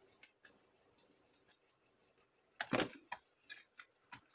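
Light clicks and taps of a screwdriver working on a laptop's plastic case as a screw is removed, with a short louder scrape a little under three seconds in.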